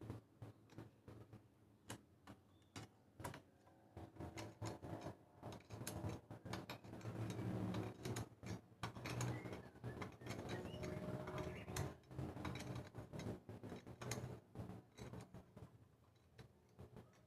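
Irregular metallic clicks, taps and knocks of hand work on a wood planer's blade fittings, busiest around the middle.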